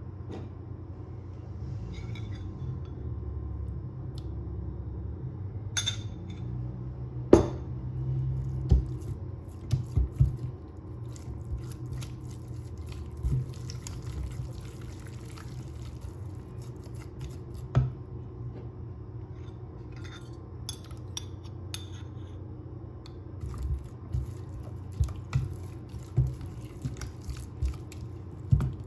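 Scattered small knocks, taps and clinks of objects being handled, over a steady low hum. The sharpest knock comes about seven seconds in, and there are clusters of lighter taps around ten seconds and near the end.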